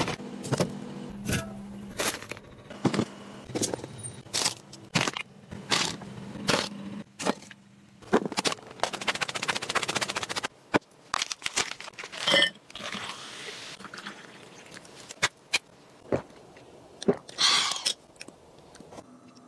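Handling noises of bottles, jars and packaging: a run of sharp clicks and knocks, with a stretch of dense crackling about eight seconds in and a couple of louder rustling bursts later. A low steady hum lies under the first few seconds.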